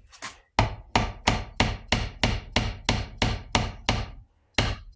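A glued wooden dowel being tapped gently down into a hole in a guitar neck: a steady run of light, even knocks, about three a second, with a short pause about four seconds in before the tapping resumes.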